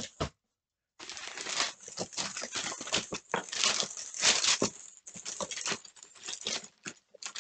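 Packing paper crinkling and rustling as it is pulled out of a shipping box and unwrapped. It starts about a second in, after a moment of dead silence.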